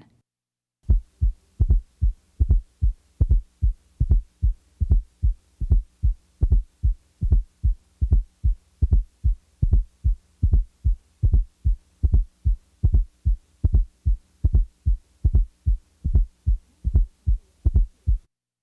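Heart sounds heard through a stethoscope: a steady rhythm of short, low thuds, with a fourth heart sound (S4, atrial gallop) falling just before the first heart sound; the S4 is taken out partway through and then added back. An S4 is a low-pitched late-diastolic sound from the atria contracting into a stiff, poorly compliant ventricle.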